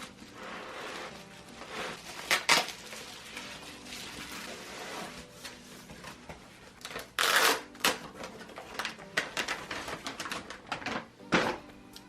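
Graphics card being unboxed by hand: cardboard box and packaging rustling and scraping, with many small clicks and taps and a loud burst of rustling about seven seconds in.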